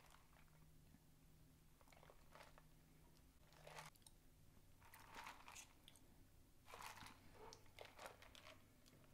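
Near silence with faint mouth noises of someone sipping and tasting an iced espresso drink from a plastic cup: a few short, scattered noises, most of them in the second half.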